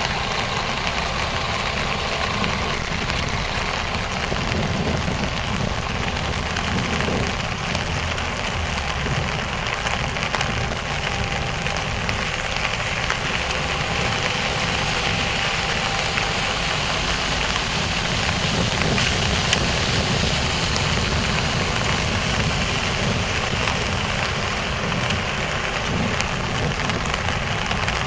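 Heavy rain falling steadily on a transparent bicycle umbrella canopy close overhead and on the wet pavement around, with a steady low rumble beneath.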